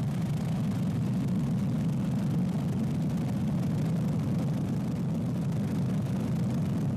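Steady low engine drone with a constant hiss over it, even and unchanging throughout.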